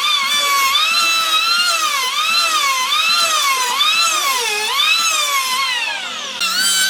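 High-speed electric power tool whining, its pitch dipping and recovering in a steady rhythm about every half second as it is worked against the wood.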